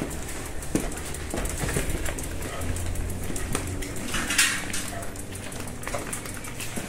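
Light metallic clicks and knocks from a loaded touring bicycle being wheeled by hand, its parts and panniers rattling, with a brief hiss about four seconds in.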